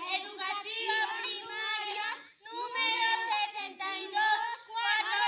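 Young children singing in unison without instruments, in short phrases with a brief pause about two seconds in.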